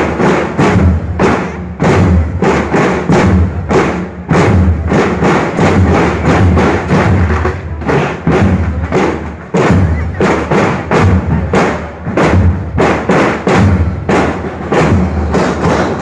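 Student drum corps playing marching drums up close: many drums beaten together in a steady, loud march rhythm, with deep drum strokes underneath.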